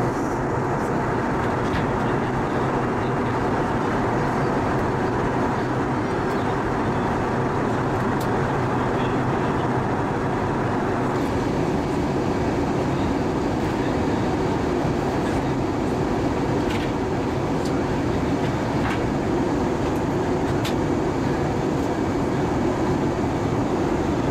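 Steady in-flight cabin noise of an Airbus A320, heard inside the cabin by the engine: an even rush of jet engine and airflow noise that does not change.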